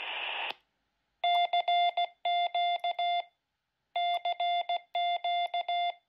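Quansheng UV-K5 handheld radio's CW sidetone: Morse code beeps keyed on an iambic paddle, in two runs of about two seconds each with a pause between, sending CQ. A brief hiss of radio noise cuts off in the first half second.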